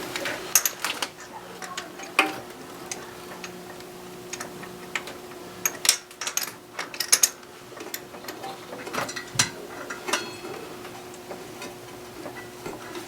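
Socket ratchet clicking in irregular short runs, with metal clinks, as flex plate bolts are run in through the starter hole, over a faint steady hum.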